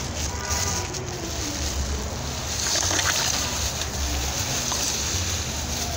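Caustic soda poured from a plastic bag into a container of water: a steady pouring hiss that grows louder about halfway through.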